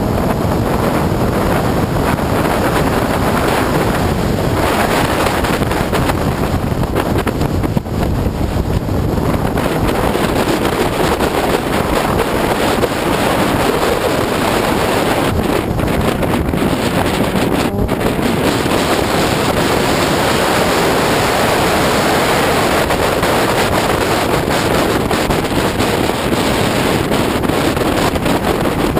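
Steady heavy wind rush on an onboard camera's microphone from an Opel Speedster driven at speed, with its engine and tyre noise blended in underneath.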